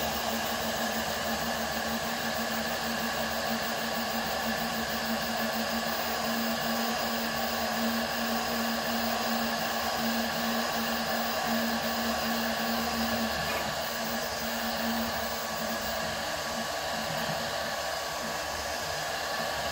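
RatRig V-Core 3 3D printer running mid-print: its cooling fans whir steadily with a constant airy whoosh. A low steady tone sits under it and drops away about two-thirds of the way through.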